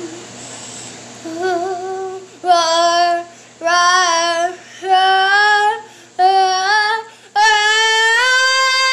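A young girl singing unaccompanied: a string of separate sung notes about a second each begins about a second in, then a long held note near the end.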